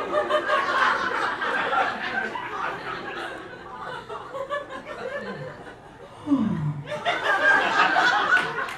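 Theatre audience laughing, thinning out midway and swelling again near the end, with a short downward-gliding vocal sound about six seconds in.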